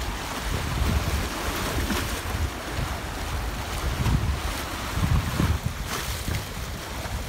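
Small sea waves washing and splashing against rocks at the shoreline, with wind buffeting the microphone in uneven low rumbling gusts.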